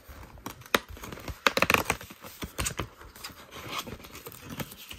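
Handling noise: irregular crinkling and rustling with small clicks and knocks, loudest about one and a half to two seconds in.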